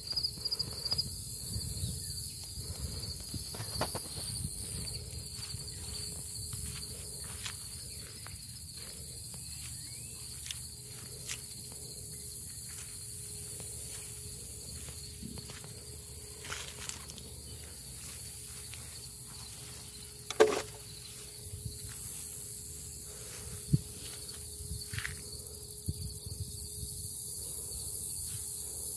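Steady outdoor chorus of insects, crickets trilling, with a high shimmering hiss, under the soft footsteps and rustle of someone walking through a garden. A brief sharp sound stands out about twenty seconds in.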